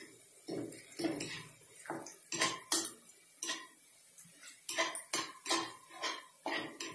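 A white plastic spatula scraping and knocking against a stone-coated nonstick frying pan as sliced onions are stirred, in irregular strokes of about two a second.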